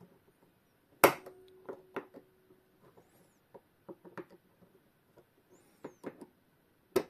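Small metal tools and parts being handled while a Junghans clock movement is taken apart and its nuts removed: a sharp metallic clack about a second in with a short ringing note after it, then scattered light clicks and taps, and another sharp click near the end.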